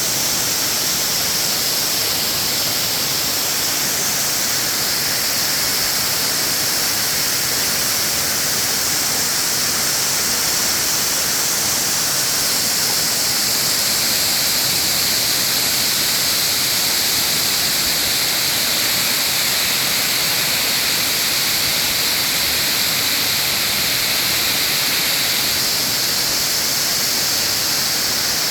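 Mountain waterfall rushing steadily: a loud, even hiss of falling water.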